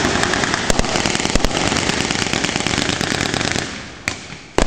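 Sustained automatic gunfire from blank-firing weapons: a long run of rapid shots for about three and a half seconds, then two single shots near the end.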